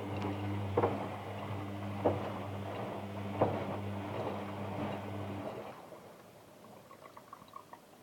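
Samsung Bio Compact washing machine on its rinse cycle with bed linen: the motor hums steadily as the drum turns, with three soft thuds of the wet laundry tumbling. The motor then stops about five and a half seconds in, leaving only faint ticks.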